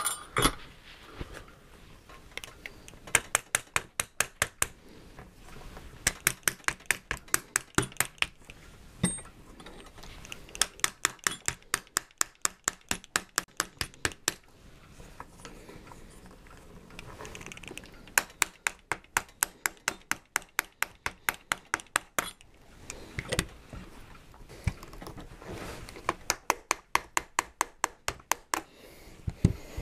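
Quick light taps on a wooden dowel held against a Mauser rifle's barrel band, knocking the band back into place on the stock. The taps come in runs of about five a second, each run lasting one and a half to four seconds, with short pauses between.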